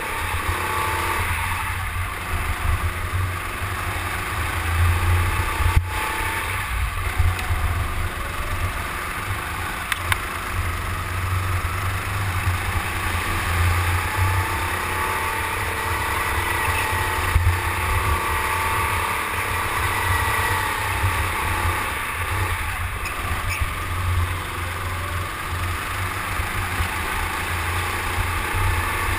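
Racing go-kart running at speed, heard from an onboard camera: the motor's pitch rises and falls with the throttle through the corners over a constant low rumble of vibration and air buffeting on the microphone.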